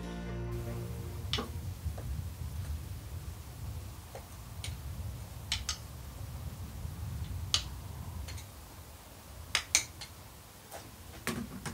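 Sparse, irregular sharp clicks and ticks over a low steady rumble, the loudest pair close together near the end.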